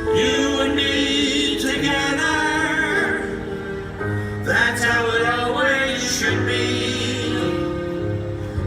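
Music with singing: voices in a choir-like style holding wavering notes over a low, sustained bass.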